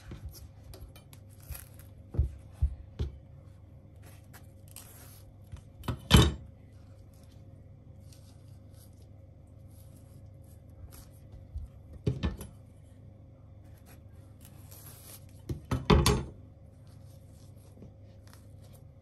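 Saba cooking bananas being peeled by hand on a wooden cutting board: the thick skins tear and rustle as they are pulled off, with a few sharp clicks, the loudest about six seconds in and another pair around twelve and sixteen seconds.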